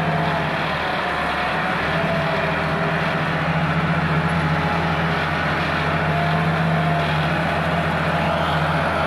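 Massey Ferguson 375 tractor's diesel engine running steadily under load as it pulls a heavily loaded sugarcane trolley.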